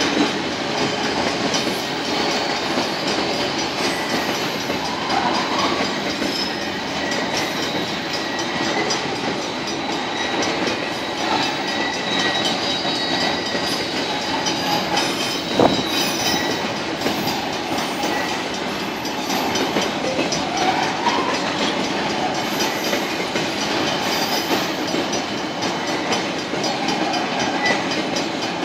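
Freight train's container wagons rolling over a level crossing with a steady clickety-clack of wheels on rail joints, and one sharp bang about halfway through. The crossing's mechanical bells ring throughout as a continuous thin ringing.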